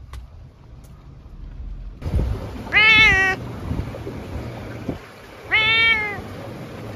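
An orange tabby cat close to the microphone meows twice, each meow rising then falling in pitch and lasting well under a second, the two about three seconds apart.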